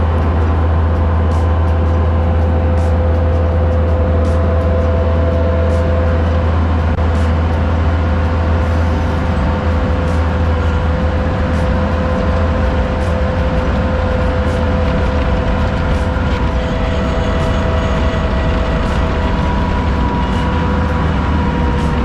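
Vehicle engine running steadily: a loud low drone with a faint steady whine above it.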